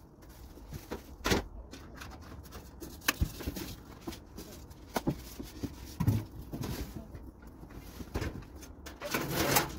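Scattered knocks and clicks of grill parts being handled during unboxing and assembly, a few sharp taps among quieter rustling.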